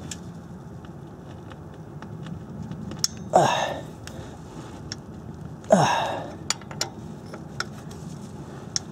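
A man's two strained grunts, each falling in pitch, about three and six seconds in, as he heaves on a wrench to break loose a very tight 14 mm belt-tensioner bolt. A few faint clicks and a steady low hum lie under them.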